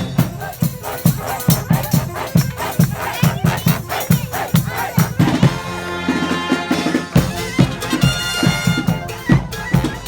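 A brass-and-drum street band playing live, horns over a steady drum beat. A little past halfway the drums thin out under held horn notes, then the bass drum comes back in strongly with bright horn chords.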